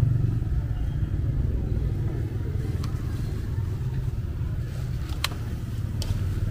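A small engine running steadily at idle with a low rumble, with a few sharp metal clinks about three and five seconds in.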